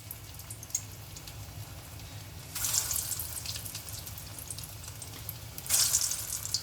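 Hot oil crackling and sizzling in a pan as mutton meatballs go in to deep-fry, with two louder bursts of sizzle, about two and a half seconds in and again near the end, as balls drop into the oil.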